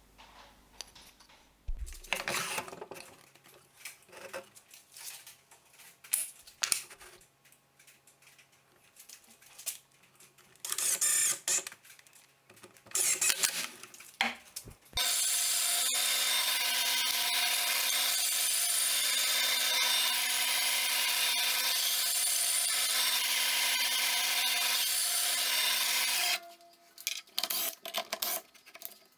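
Wood pieces knocked and slid about on a bandsaw sled for the first half, then a bandsaw runs steadily with a loud hiss and a low hum for about eleven seconds before cutting off abruptly, followed by a few more knocks.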